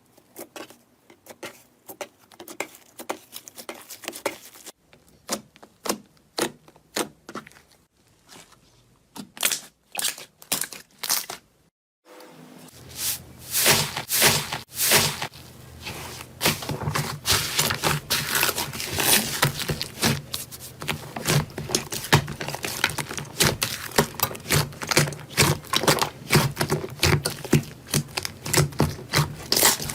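Slime being squeezed and poked by hand, making sharp crackling and popping clicks. The clicks come sparse and spaced for about the first twelve seconds, then after an abrupt cut turn dense and continuous over a faint low hum.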